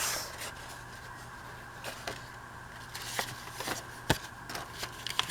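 Paper being handled on a work surface: scattered light taps and soft rustles with quiet gaps between.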